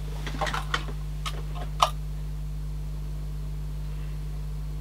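A handful of light clicks and taps from small parts and tools being handled inside an opened cassette deck, bunched in the first two seconds, the sharpest near the end of that run, over a steady low hum.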